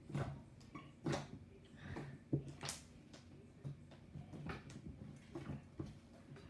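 Butter slime being poked by fingers: irregular soft sticky clicks and squelches, a few of them sharper and louder than the rest.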